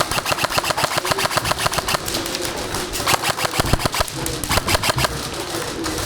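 Airsoft guns firing rapid strings of shots, a fast clatter of sharp clicks at about ten a second at times.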